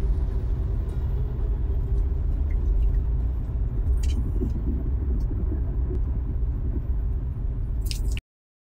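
Car driving on a wet road: steady low road and engine rumble, with a few light clicks, cutting off abruptly near the end.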